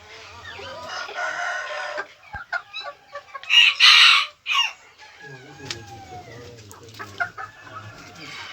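Chickens clucking with a rooster crowing. A loud, harsh call about three and a half seconds in is the loudest sound.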